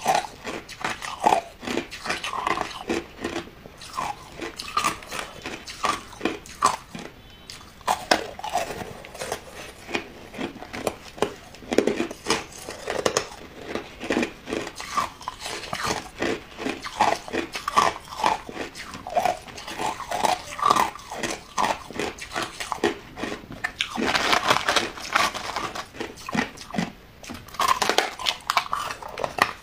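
A person biting and chewing chunks of hard white ice: a dense, irregular run of sharp cracks and crunches, with a thicker burst of crunching late on.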